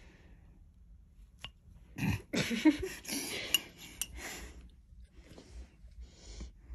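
A metal spoon scraping and clinking against a ceramic plate as it cuts through soggy cake, with a single click about one and a half seconds in and a busier run of scrapes and ticks in the middle. A brief vocal sound comes about two and a half seconds in.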